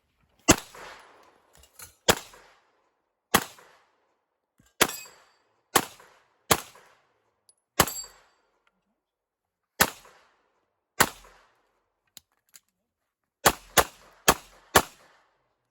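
Glock 17 Gen 5 9mm pistol firing about thirteen shots on a steel-target course of fire: single shots roughly a second apart, then four quick shots near the end.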